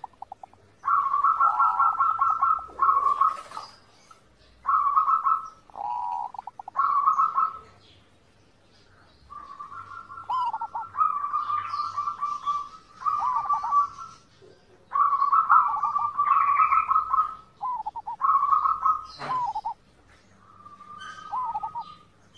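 Zebra dove (perkutut) cooing: phrase after phrase of rapid, stuttering trilled coos near one pitch, with short breaks between phrases.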